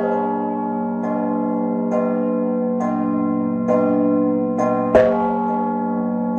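A peal of bronze church bells rung by hand, each clapper pulled on a rope against a hanging bell. Smaller bells strike about once a second over the steady hum of the big bell, which is struck loudly again about five seconds in.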